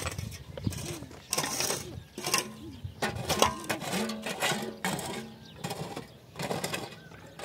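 A shovel and a short-handled hoe striking and scraping dry, stony soil in repeated strokes, with grit and small stones clinking.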